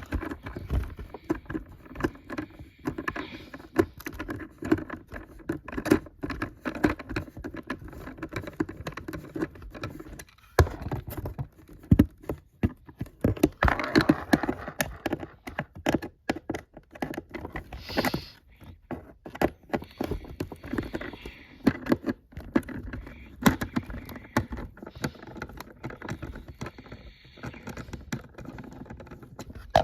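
Close handling noise: a dense, irregular run of small clicks, taps and rattles, like plastic toy parts and packaging being handled.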